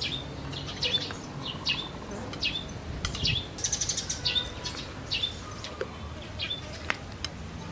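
A small bird chirping over and over, one short sharp chirp roughly every second. A few light clicks of a metal spoon on a ceramic plate come midway and near the end.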